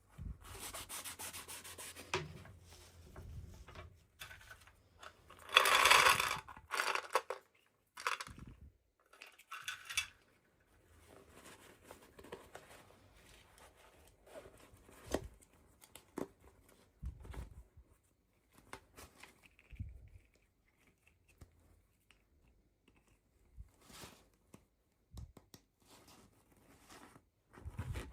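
Toy packaging being handled and torn open, rubbing and tearing in irregular bursts; the loudest, longest burst comes about six seconds in, with scattered small clicks and taps between.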